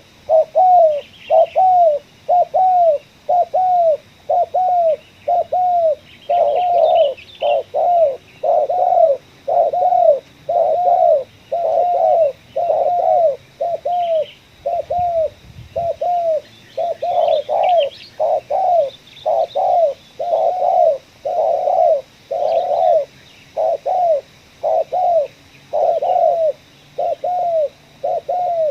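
Spotted dove (tekukur) cooing in a long, steady series of short, arched coo notes, a little over one a second. Faint chirps of small birds sound higher up.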